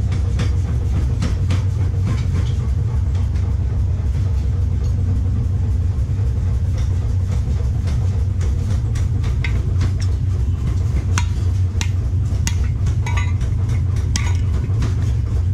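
A steady low mechanical hum, with a few light metallic clinks and taps in the latter part as steel strips are handled on a bending jig.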